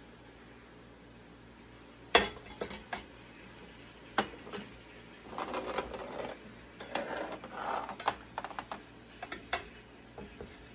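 A plastic ladle and a metal canning funnel knocking and clinking against a stainless steel pot and glass canning jars while hot jelly is ladled into the jars. There are a handful of sharp clinks, the loudest about two seconds in, with short stretches of scraping and shuffling between them.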